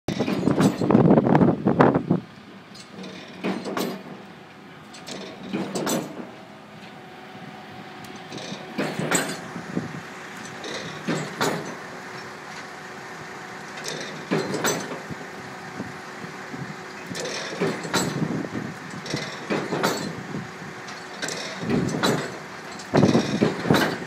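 Pile-driving hammer striking a steel beam pile in slow, unevenly spaced blows about every two seconds as driving begins, over the steady drone of the rig's machinery. Louder noise fills the first two seconds.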